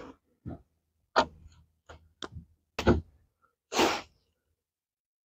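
A run of clicks and knocks from handling the air tank's fill fitting and the air rifle. About four seconds in comes a half-second burst of rushing, hiss-like noise.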